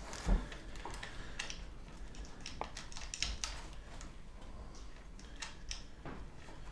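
Scattered light clicks and taps from small gear being handled at a table, with a soft thump shortly after the start.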